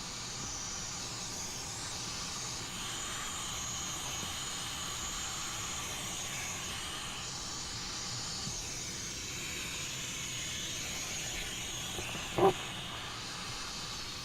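Vacuum cleaner running steadily, a high hiss of air as it sucks debris out of a car's A/C evaporator and blower housing through the cabin filter opening. A short, sharp sound stands out near the end.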